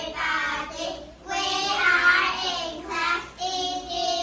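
A child singing, with held notes and no clear words.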